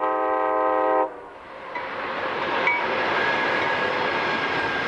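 Locomotive air horn sounding one chord for about a second, then the rising rush of a passenger train passing at speed.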